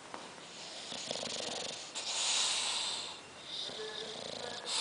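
Sleeping bulldog snoring: a rattling breath, then a loud hissing rush of air about two seconds in, with the next snore starting near the end.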